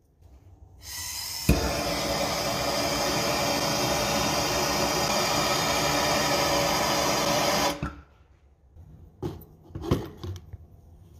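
Handheld gas torch lighting with a sharp pop about a second and a half in, then burning with a steady hiss for about six seconds as its flame melts a test tube's neck shut to seal it into a glass ampoule. The hiss cuts off suddenly and is followed by a few light knocks.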